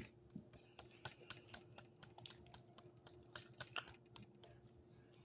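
Faint, irregular light clicks and taps, several a second, over a low steady hum; otherwise near silence.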